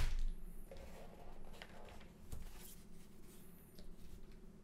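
Soft packaging handling as a foam sheet is lifted out of a cardboard motherboard box. There is a knock right at the start, then faint scattered rustles and a few light crinkles.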